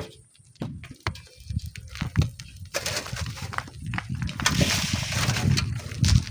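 Irregular knocks and crunching scrapes of sand and stones being dug and moved, with wind rumbling and buffeting on the microphone.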